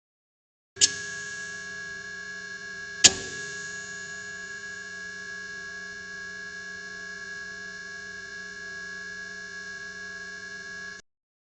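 Failing fluorescent tube light: a sharp click as it comes on, then a steady electrical buzz with a high whine, a second sharp click about two seconds later, and the buzz cuts off suddenly near the end.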